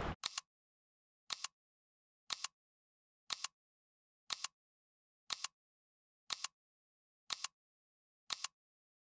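Steady outdoor noise cuts off suddenly at the very start. It is followed by evenly spaced ticking over dead silence: a sharp double click once a second, nine times.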